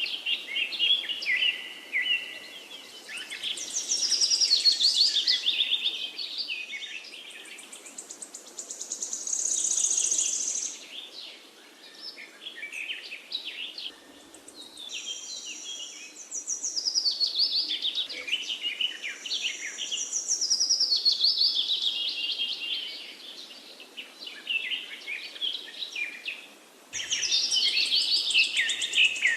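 Several songbirds singing and chirping over one another in rapid trills and high chirps that come and go in waves, over a faint steady background hiss. Near the end the chorus jumps suddenly to a denser, busier mix.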